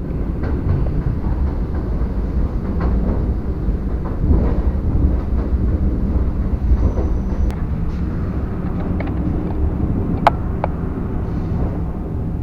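ED4M electric multiple unit running along the track: a steady low rumble of the carriage with scattered wheel clicks, and one sharp click about ten seconds in.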